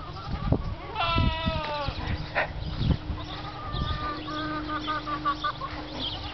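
A cat meows once, a long falling meow about a second in, over low thumping footsteps, with a quick run of short high chirps near the middle.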